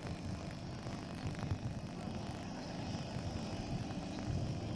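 Electric scale model Bristol Beaufighter in low flight, its onboard sound generator playing a twin radial-engine rumble over the whirr of its propellers. The sound grows a little louder as the model comes closer.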